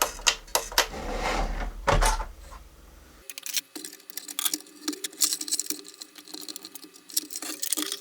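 Hands working a hose loose inside an espresso machine's plastic housing: knocks and clicks over a low hum. About three seconds in, the hum cuts off and a quick, irregular run of small plastic clicks and rattles follows.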